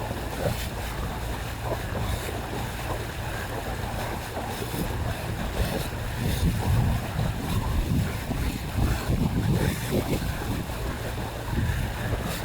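A boat on water: a steady low rumble with water noise, and wind buffeting the microphone, which grows gustier and louder about halfway through.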